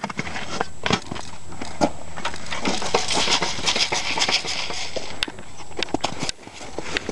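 Close scratchy rustling with many small clicks: a Shetland pony nosing and eating grain from a feed pan with its muzzle right against the camera. The hiss is loudest in the middle and thins out in the last couple of seconds.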